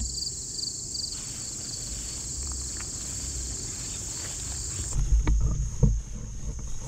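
Steady high-pitched drone of summer insects, with a quick pulsing chirp on top that stops about a second in. About five seconds in, the drone shifts slightly lower and several low thumps and knocks sound.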